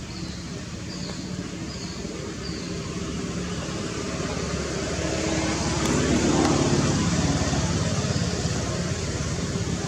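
A motor vehicle passing: a steady engine hum that grows louder to a peak about six seconds in, then fades.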